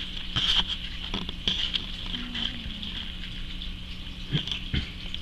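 Domestic cat snoring in its sleep: a thin hissy noise in its breathing that swells and fades, with scattered small clicks.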